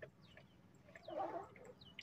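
Birds calling: repeated short, high chirps that fall in pitch, with one louder, harsher call about a second in.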